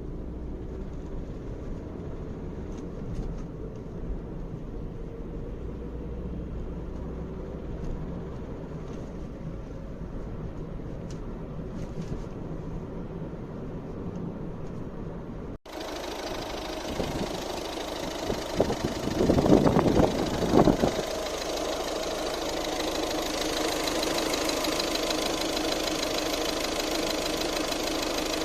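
Volvo C30 D2's 1.6-litre four-cylinder diesel engine running steadily, then, after a change about halfway, revved, with loud rattling bursts for about two seconds before it settles into steady running. The uploader blames the rattle and knock on bad injectors.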